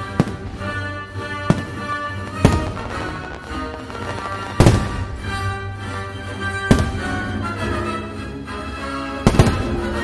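Aerial firework shells bursting, about six sharp bangs spread unevenly through, over the fireworks show's music.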